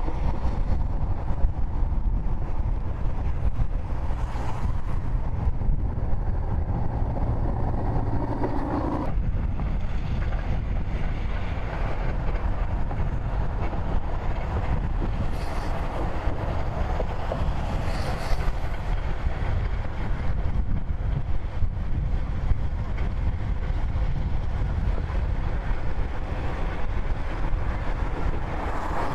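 Steady wind rumbling on the microphone outdoors, a low, even noise with no speech. Its character shifts abruptly about nine seconds in.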